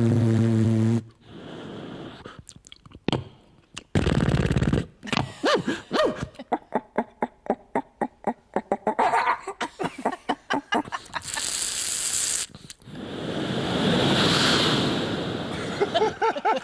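A man making sound effects with his mouth, beatbox-style. It opens with a buzzing drone, then a low thump, then a long run of rapid clicks, then a sharp hiss and a longer hissing rush that swells and fades near the end.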